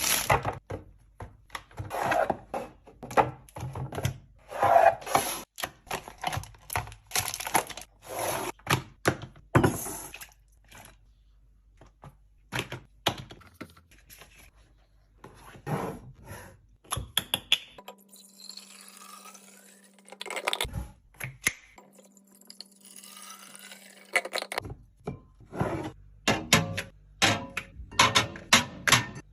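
Groceries, plastic containers and packaging being handled and set down while a fridge is restocked: quick irregular series of clicks, taps and knocks. Past the middle there is a quieter stretch of a few seconds with a low steady hum.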